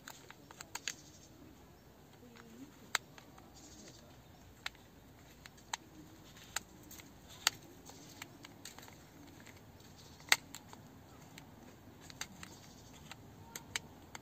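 Sharp, irregular clicks from a vintage manual camera lens handled and turned by hand, its aperture setting being changed so the blades open and close. The clicks come about one every second or two, with the loudest about three seconds in and again around ten seconds in.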